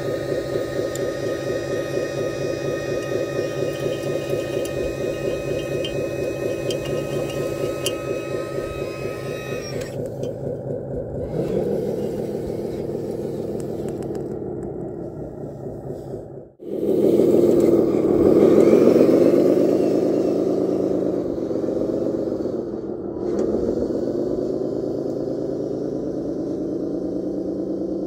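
Radio-controlled dump truck's small electric motors and gearing whining steadily with a fast pulsing ripple. It cuts off suddenly past the middle, then returns louder, its pitch rising and falling.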